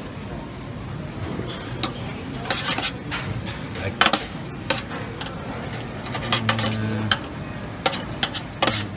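Metal serving tongs clinking and scraping against a stainless-steel steam-table pan. A run of sharp clinks starts about a second and a half in, and the loudest comes about four seconds in, over steady restaurant background noise.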